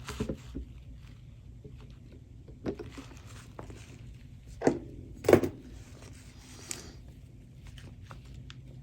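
A few short clicks and knocks from objects being handled, two louder ones close together about five seconds in, over a faint steady hum.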